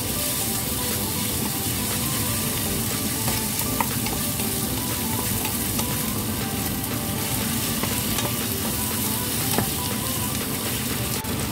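Sliced beef and white onion sizzling steadily in hot oil in a pan, with a few light ticks of the utensil stirring them.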